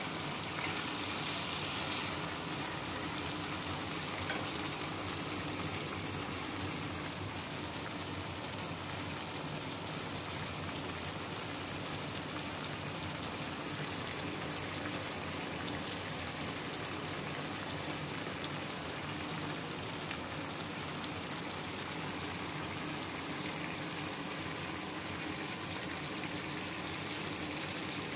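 Cherry tomato and caper sauce sizzling steadily in a frying pan around hamour fish fillets.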